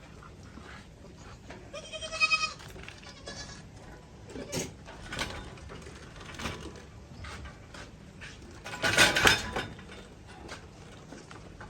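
Goats bleating: a short high bleat about two seconds in, a fainter one soon after, and the loudest, longer bleat about nine seconds in, with light rustling between.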